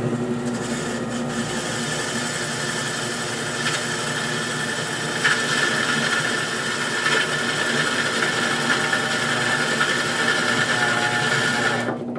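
Mini benchtop drill press running, its twist bit cutting into an aluminum part: a steady motor whir with a scraping edge that grows stronger about five seconds in. The bit is dull. The drill stops near the end.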